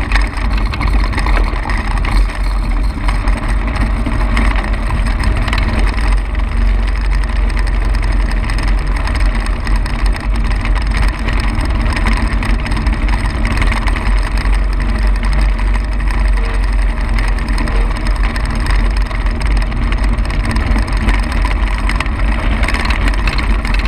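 Bensen B7M gyrocopter's small engine running steadily while the aircraft stands still on the ground, with no change in speed.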